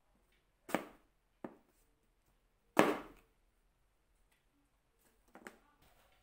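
Kitchen knife slicing through an apple and knocking on a cutting board: three knocks in the first three seconds, the third the loudest, then softer taps near the end.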